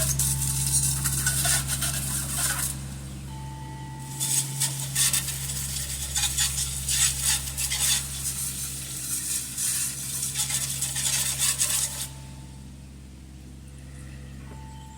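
Water spraying hard against the engine to wash off the mouse nest. It sprays for about three seconds, stops briefly, then runs again for about eight seconds before cutting off. A steady low hum runs underneath.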